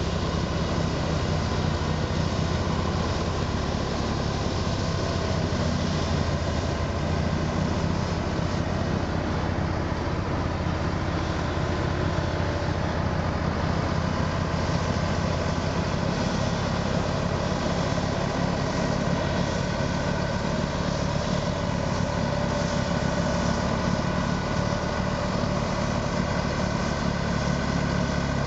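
Vohl VL-350 loader-mounted snow blower running and throwing snow, its 350 hp John Deere diesel driving the impeller, together with the CAT 950E wheel loader's diesel engine. A steady, heavy drone with a rushing hiss of blown snow over it.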